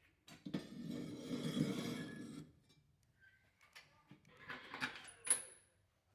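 Forged steel blade being handled into a heat-treating oven: a scraping, sliding rub for about two seconds, then a few clicks and a sharp metallic clink with a brief high ring near the end.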